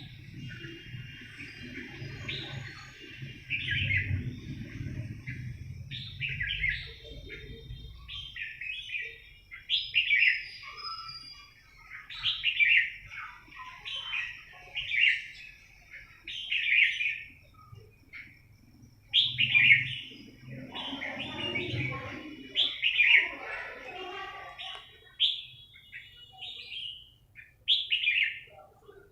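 Songbirds calling, short chirpy phrases repeated every second or two, with a low rumble of handling noise under the first few seconds.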